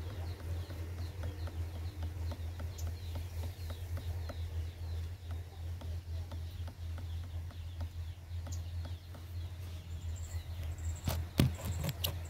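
Steady low hum with faint, regular ticking about three times a second and a light high chirping over it; a few sharp knocks about eleven seconds in are the loudest sounds.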